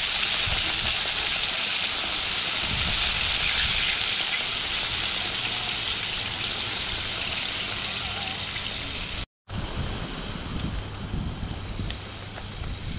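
Steady hissing sizzle of food frying in hot oil. It cuts off suddenly about nine seconds in, giving way to a quieter, lower background.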